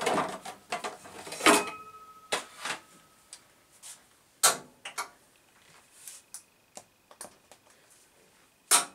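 Hard tools being rummaged for and handled on a workbench: a string of sharp knocks, clicks and clatter, with loud knocks about a second and a half in, about four and a half seconds in, and just before the end.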